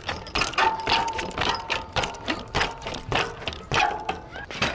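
Mountain bike rolled slowly by hand, its rear hub freewheel ticking as the wheel coasts: sharp, irregular clicks, about three or four a second.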